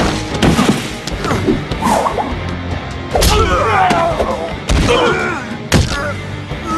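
Cartoon fight sound effects: several hard hits and crashes land one after another over loud action music.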